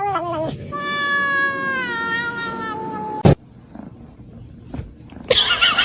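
A cat yowling: a short wavering cry, then one long drawn-out meow that slowly falls in pitch, ended by a sharp knock about three seconds in. Another short cry comes near the end.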